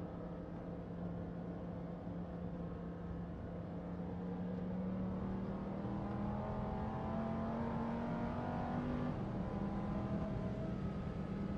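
Sports car engine running steadily, slowly rising in pitch as it accelerates, then dropping back suddenly about nine seconds in.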